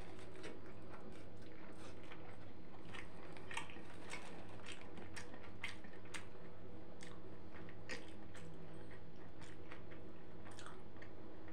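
A man biting into a shawarma and chewing it: irregular wet mouth clicks and smacks over a steady low hum.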